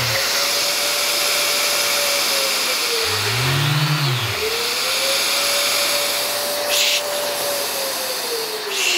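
Electric random-orbital sanders running on vacuum dust extraction: a steady rushing hiss with a motor whine that rises and holds, dips about four seconds in, climbs back, and falls off near the end.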